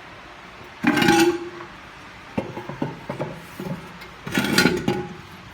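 Metal parts of a disassembled CVT transmission being handled: two short scraping clatters with a faint ringing note, about a second in and again near the end, with a few light knocks in between.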